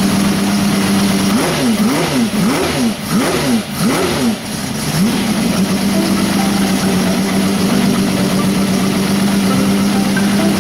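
Engine idling, blipped about seven times in quick succession over three or four seconds, each rev rising and falling fast, then back to a steady idle. A steady engine note carries on underneath throughout.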